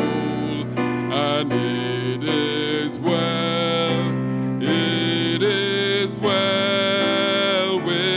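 A male solo singer sings a hymn into a handheld microphone, holding notes with slides between them, over steady instrumental accompaniment.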